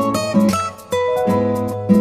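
Background music of strummed acoustic guitar chords, changing chord about every half second.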